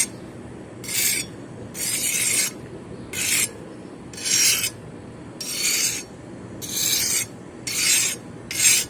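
Steel knife blade being drawn across the coarse side of a whetstone: a gritty, raspy scrape repeated about once a second, around eight strokes.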